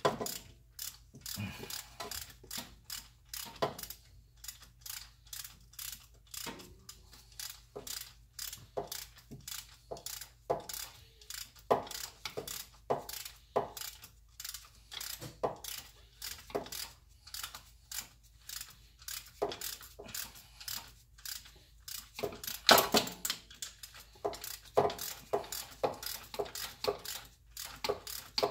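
Hand socket ratchet clicking in a steady run of strokes, about two a second, snugging down a bolt of the CV axle's mid-shaft bracket.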